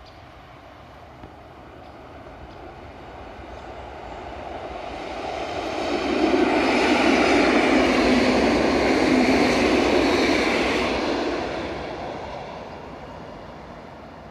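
EN57AKŚ electric multiple unit passing by. Its running noise grows as it approaches, is loudest for about five seconds as it goes past, and then fades as it draws away.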